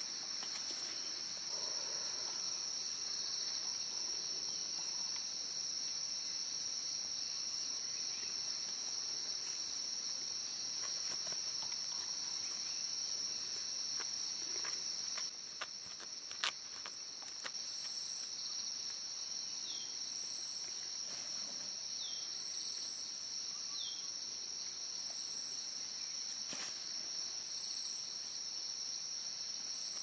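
Steady high-pitched drone of forest insects, unbroken throughout, dipping briefly about halfway with a few light clicks. A few faint short falling chirps come through in the second half.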